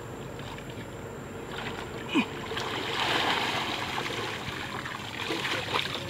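Water splashing and streaming off a mass of pond weeds as they are hauled up out of shallow water, swelling a couple of seconds in. A short sharp click about two seconds in.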